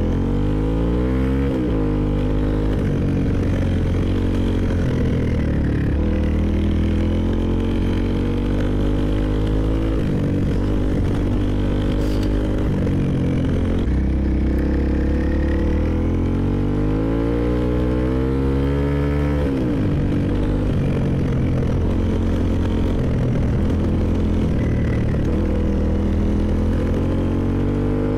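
Motorcycle engine running under way, its pitch repeatedly rising as it accelerates and falling back as the throttle eases or it shifts gear.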